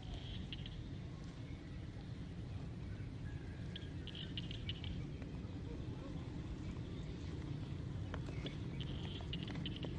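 Outdoor ambience: a steady low rumble, with three brief bursts of rapid high-pitched chirping, near the start, about four seconds in and near the end.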